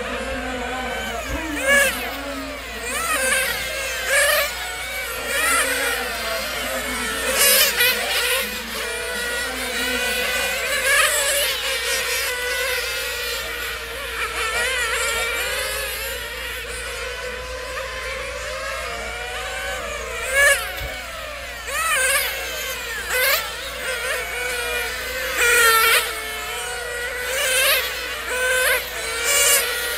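Several nitro-powered radio-controlled racing cars with small glow engines running at high revs, their buzzing whine rising and falling in pitch as they accelerate and brake round the circuit, louder each time a car passes close.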